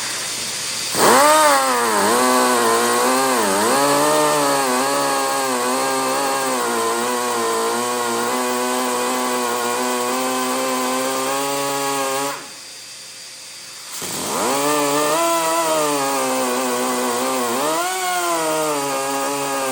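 Handheld electric cutting tool running while cutting a groove into a fibreglass car body panel; its pitch dips and recovers as it bites. It spins up about a second in, stops briefly near the two-thirds mark, then spins up and cuts again.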